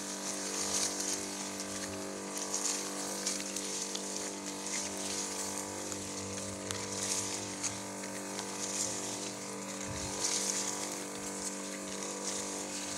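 Small engine of a motorized knapsack sprayer running at a steady speed, with the high hiss of spray from the wand that swells and fades every couple of seconds.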